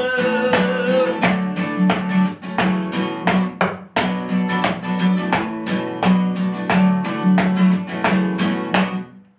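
Acoustic guitar strummed fast and rhythmically, with a brief break about four seconds in. The final chord rings out and dies away just before the end, closing the song.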